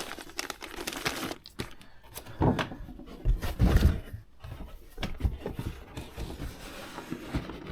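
Kit parts and plastic parts bags being handled and set down on a table: scattered light knocks and soft rustles, with a few heavier thumps between about two and a half and four seconds in.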